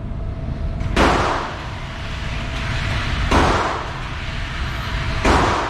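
Three gunshots about two seconds apart, each sharp crack followed by an echoing tail.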